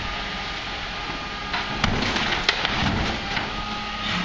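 Garbage truck's diesel engine running steadily while the Faun Variopress rear-loader lifter raises and tips a large wheeled bin. From about a second and a half in there is a run of clattering knocks, loudest near the middle, as the bin is tipped and emptied into the hopper.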